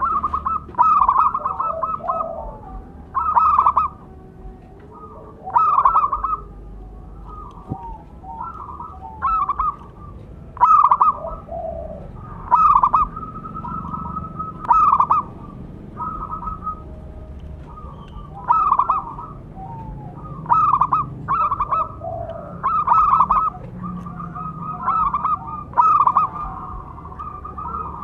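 Zebra dove (perkutut) cooing: bursts of rapid, short coos repeated every one to two seconds.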